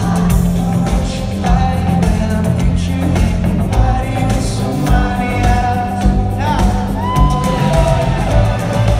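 Live pop-rock band playing loudly, with drums, guitar and singing, heard from within the audience of a large hall; a long note is held and bends about seven seconds in.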